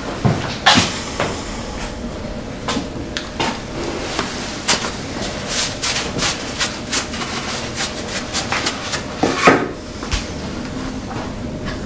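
A series of short, sharp knocks and clicks, coming about two a second through the middle, with one louder knock about nine and a half seconds in.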